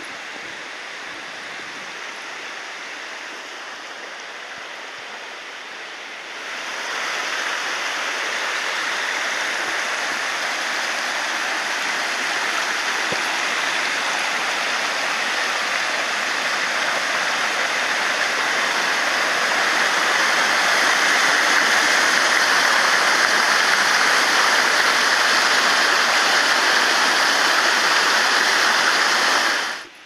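Steady rushing of a waterfall and its stream, growing louder about six seconds in and a little louder again toward the middle.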